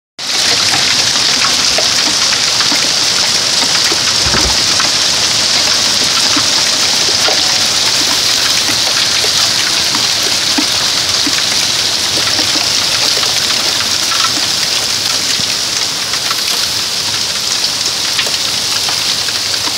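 Heavy hail falling with rain, pelting pavement, puddles and parked cars: a dense, steady hiss made of countless small ticks of hailstones striking.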